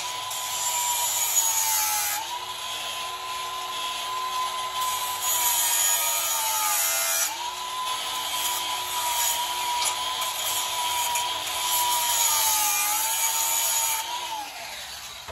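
High-speed grinder taking a little material off the end of a metal part: a steady high whine over a grinding hiss, the pitch sagging each time it bites in. It winds down with a falling pitch and stops near the end.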